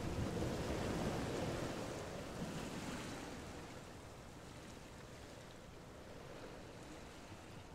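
Wind-driven waves lapping and breaking along a lake shore, with wind blowing across the water, fading gradually.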